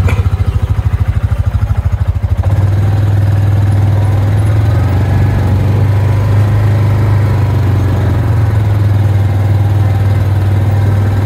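Engine of a side-by-side utility vehicle running as it drives slowly across grass. It pulses quickly for the first couple of seconds, then settles to a steady drone.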